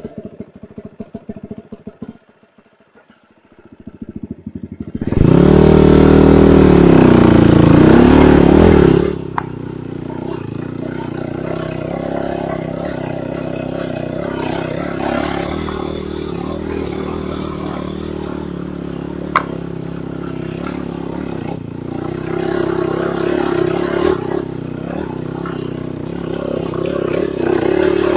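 Enduro dirt bike engine: it is nearly quiet for a moment, then revs hard for about four seconds with the pitch swinging up and down, then settles to a steady lower-rev run with some clatter and one sharp click.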